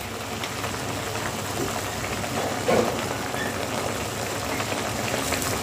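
Tomato and onion sauce for chicken devil simmering in a wok on a gas burner: a steady bubbling, crackling hiss.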